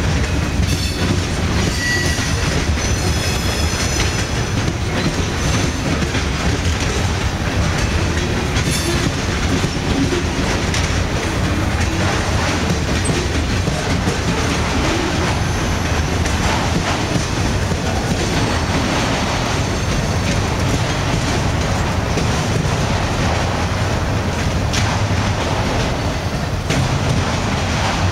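Freight train cars (covered hoppers, then autoracks) rolling past close by: a steady rumble with the clickety-clack of wheels over the rail joints. Thin high wheel squeals sound in the first few seconds.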